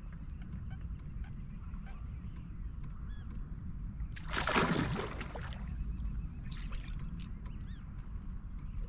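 Steady low wind and water noise around a fishing kayak, with faint bird chirps and light ticks. About four seconds in, a loud rush of noise lasting about a second, as the fishing rod bends hard.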